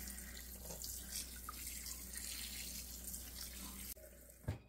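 Tap water running onto dried figs in a stainless-steel mesh strainer in a sink: a steady splashing rush. It gets quieter about four seconds in, and a single sharp knock follows just before it stops.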